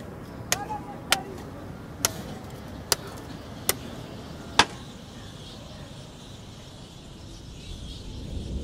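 Butcher's blade chopping into an animal carcass: six sharp, separate strikes, roughly one a second, the last the loudest. After that only a steady faint outdoor background remains.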